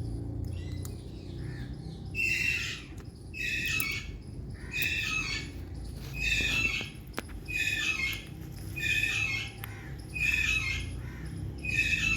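Indian green parrot squawking: a harsh, screechy call about half a second long, repeated about every second and a half, with a low steady rumble in the background.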